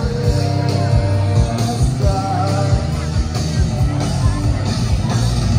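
Live rock band playing loud: electric guitars over a steady heavy drum beat, with a singer.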